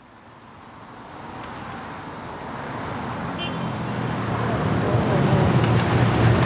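City street traffic noise fading in steadily from quiet, with a low vehicle engine hum growing louder in the second half.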